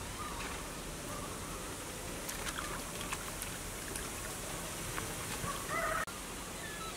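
Water trickling and splashing in a metal basin, with small clicks as spiders are rinsed by hand, and birds chirping faintly.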